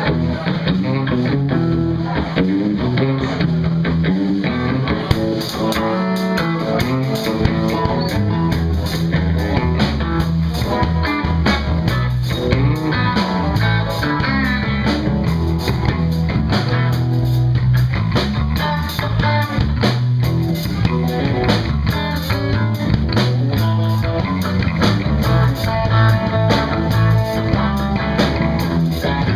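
Live blues band playing: electric guitar over a bass guitar line, with a drum kit whose cymbals come in about five seconds in and keep a steady beat.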